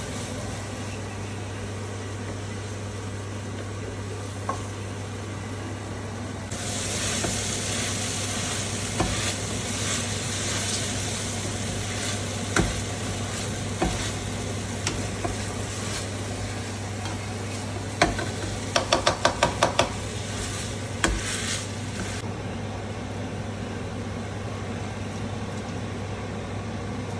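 Egg mixture sizzling in a frying pan while a utensil stirs and scrapes it, the sizzle starting about a quarter of the way in and stopping about three quarters through. Around two thirds of the way in, a utensil knocks against the pan in a quick run of about eight metallic taps. A steady low hum runs underneath.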